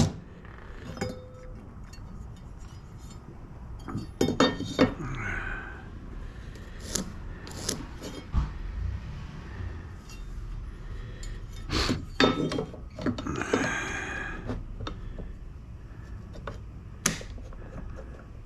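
Scattered clinks and knocks of hand tools and small hardware being picked up and set down on a work bench, a dozen or so at uneven intervals.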